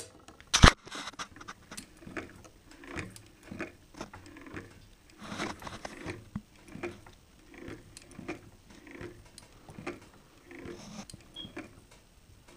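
Singer 111W153 walking-foot sewing machine turned slowly by hand, its needle bar, presser feet and feed dogs giving soft, fairly regular mechanical clicks and knocks about once or twice a second. A single sharp knock comes just after the start.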